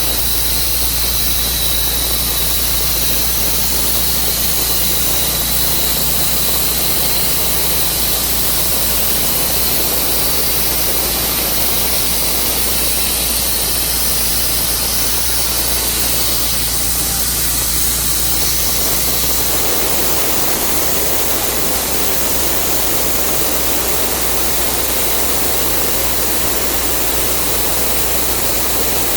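Portable sawmill running steadily under load, its blade sawing through a bur oak log. A steady hiss and engine hum, with the sound changing somewhat about twenty seconds in.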